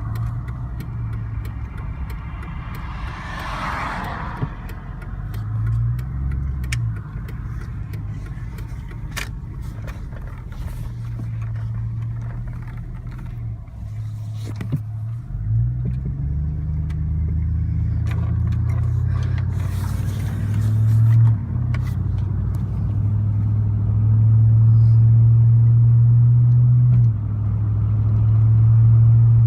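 2000 Z71 pickup's 5.3-litre V8 running, its hum changing pitch several times and growing louder in the last few seconds, with a few sharp clicks. The truck's transmission has lost reverse and third gear after being driven in 4Lo for over two hours.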